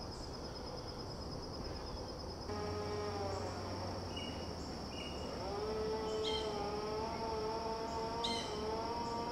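Steady high-pitched insect chorus, pulsing at first, with a few short bird chirps. A level, pitched, hum-like tone of unclear source comes in about a quarter of the way in for a second, then returns halfway through and holds to the end.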